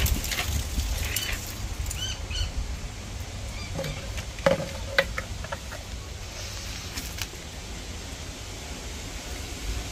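Handling of a plastic outboard fuel tank and an epoxy syringe: a few light clicks and knocks, the loudest two about halfway through. Short bird chirps sound in the first few seconds.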